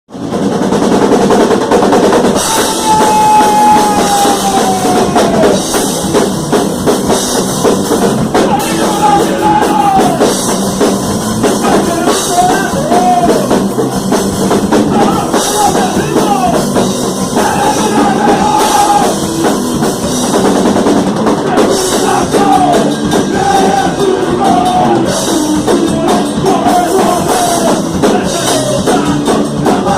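A rock band playing loud, with a drum kit and a melody line that slides up and down in pitch. It kicks in at full level right at the start.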